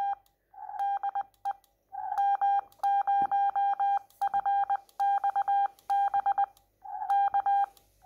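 Xiegu X6100 transceiver's CW sidetone: a steady tone of about 800 Hz keyed rapidly on and off in Morse code dits and dahs, in groups with short gaps between them. It is the radio sending a stored CQ call with the operator's call sign on air.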